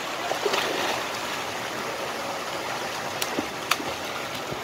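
Steady rush of water spouts pouring into a swimming pool, with splashes in the water toward the end as a child drops in.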